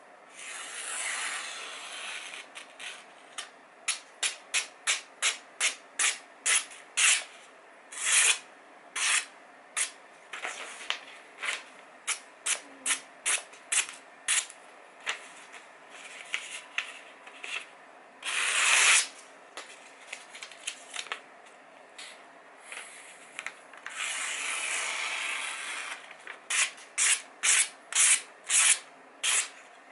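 Sharpened kitchen knife and cleaver blades slicing through a sheet of magazine paper held in the air, a test of edge sharpness: a long run of short, crisp paper-cutting swishes, often about two a second, with a few longer drawn cuts in between.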